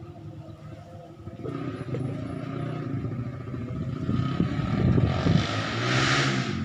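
A motor vehicle engine running, growing louder about a second and a half in, with a hissing surge near the end.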